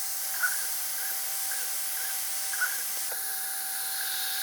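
3D printer's fans running: a steady hiss with a constant hum and soft chirps about twice a second.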